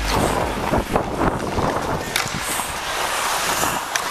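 Hockey skate blades scraping and carving the ice as a player skates, with wind rushing over a helmet-mounted camera. A few sharp knocks stand out, about two seconds in and near the end.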